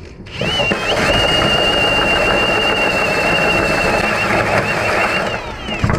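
Cordless drill driving a hole saw into the metal engine backing plate, cutting a little material around the starter hole to enlarge it: a steady high-pitched whine over a grinding rasp. The drill spins up about half a second in and winds down just before the end.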